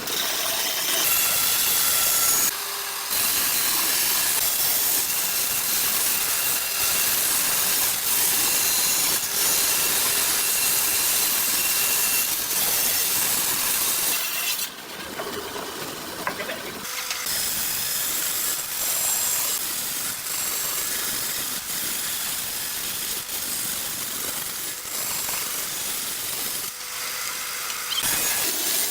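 An electric power tool working hardwood, a loud steady hissing whir that breaks off briefly about two and a half seconds in and runs quieter from about halfway.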